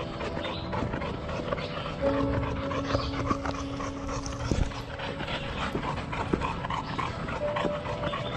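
Footsteps crunching and rustling on a dry, leaf-littered dirt trail while walking uphill, with panting.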